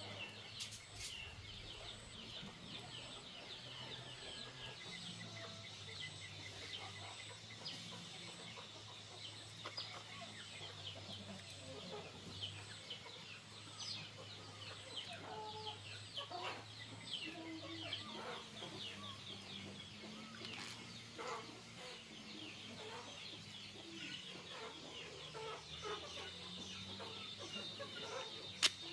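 Chickens clucking, with many short, high chirps throughout, over a faint steady low hum.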